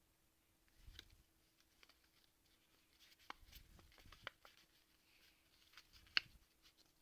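Near silence with faint taps and light rustles of Pokémon trading cards being handled. There are a few soft clicks about a second in, a cluster between three and four and a half seconds, and one sharper click about six seconds in.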